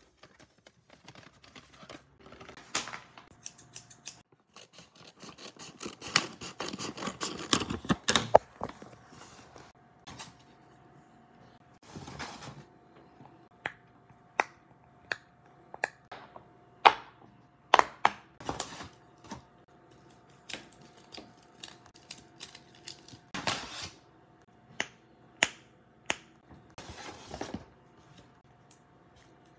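Paper bags rustling and crinkling as they are handled and opened, dense for a few seconds early on, then a long run of sharp single pops from the bubbles of a silicone pop-it fidget toy being pressed, with short bursts of paper rustling between.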